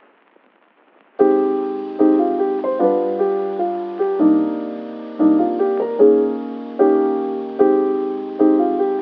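Background music: piano chords struck about once a second, each ringing out. They start about a second in, after a faint hiss.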